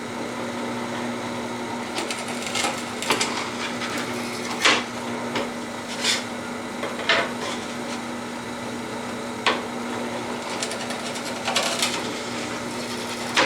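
Drill press motor running with a steady hum while a 7/32 bit drills holes through a pine board, with short, irregular knocks and scrapes as the bit cuts in and the wood is handled.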